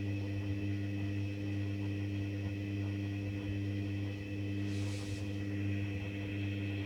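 Hoover Dynamic washing machine running its main wash, a steady motor hum throughout, with a brief hiss about five seconds in.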